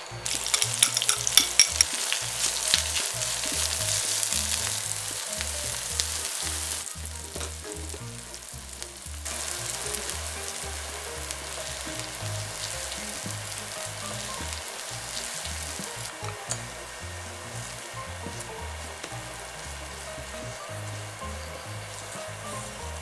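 Sliced green onions frying in hot oil in a frying pan, hitting the oil with a loud sizzle and crackling at the start. The frying then settles into a steadier, quieter sizzle while the pan is stirred with a silicone spatula, with a brief drop about seven seconds in.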